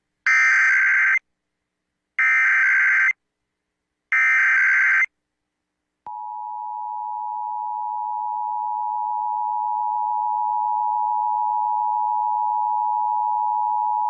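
Emergency Alert System SAME header: three bursts of harsh digital data tones, each about a second long with about a second between them. About six seconds in comes the EAS two-tone attention signal (853 and 960 Hz together), a steady dual tone that runs on past the end. This is the start of an EAS alert, here a required monthly test.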